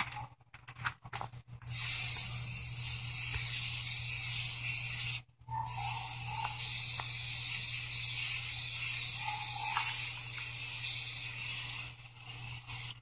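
An aerosol spray paint can spraying in long, steady hisses onto the vise body, with a brief pause about five seconds in. A few short clicks come just before the spraying.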